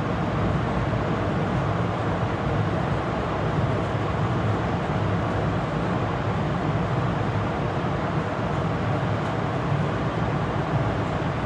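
A moving train's steady low rumble, with an even hiss above it.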